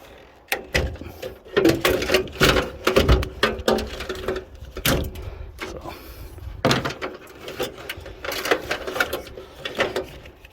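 Cables being unplugged inside an old desktop computer case: irregular clicks, knocks and rattles of connectors being pulled out.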